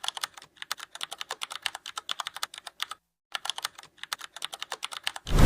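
Rapid, irregular keyboard typing clicks that stop briefly about three seconds in and then resume, followed just before the end by a sudden loud rush of noise.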